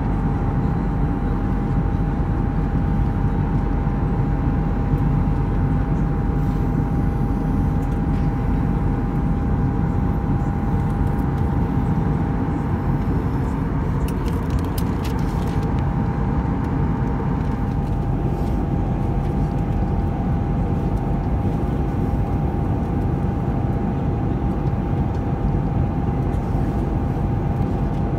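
Steady cabin drone of an Airbus A320 airliner in flight, heard from inside the cabin beside the wing: jet engine and airflow noise with a thin steady whine.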